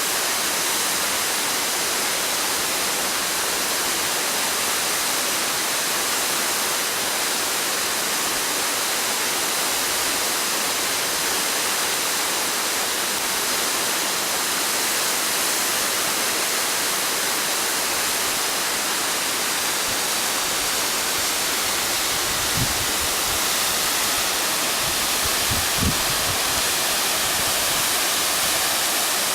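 Goshiki Falls waterfall: a steady, unbroken rush of falling water. Two brief low thumps come about three-quarters of the way through.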